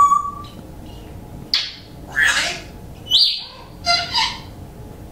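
A pet coughing: a run of about six short, noisy coughs, mostly half a second to a second apart.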